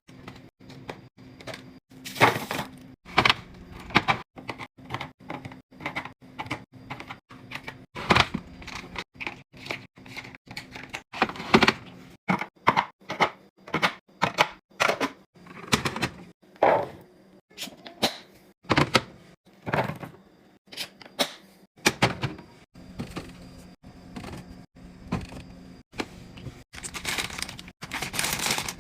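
Continuous handling of groceries and storage containers: a rapid, irregular run of clicks, taps and knocks as items and containers are picked up and set down, with a few longer rustling bursts, over a faint steady low hum.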